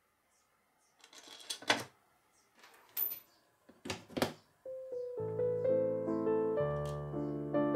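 Hard plastic clacks and knocks as clear acrylic jig plates and a jigsaw are set down and fitted onto metal pins on a wooden bench: a few sharp taps, the loudest about two and four seconds in. Background music with piano-like notes then comes in a little past halfway.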